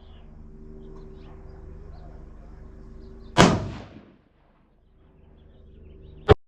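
A Savage rifle in 6.5 Creedmoor, fitted with an Ultradyne Apollo Max muzzle brake, fires a shot about three and a half seconds in: a sharp crack with a short echoing tail. A second sharp report comes near the end and is cut off abruptly. Both sound over a steady low hum.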